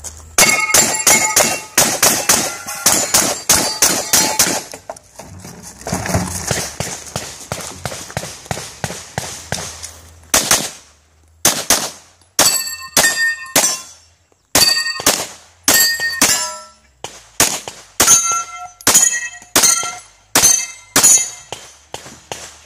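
Strings of gunshots in a practical shooting stage: a fast run of about three to four shots a second early on, then from about ten seconds in Glock 34 pistol shots spaced about half a second to a second apart. Many shots are followed by the ringing of steel plate targets being hit.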